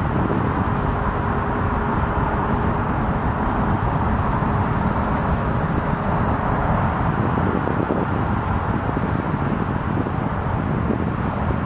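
Twin-engine widebody jet airliner on final approach with gear down: a steady jet roar from its engines, mixed with outdoor rumble. A thin steady whine sits in the roar and fades out about seven seconds in.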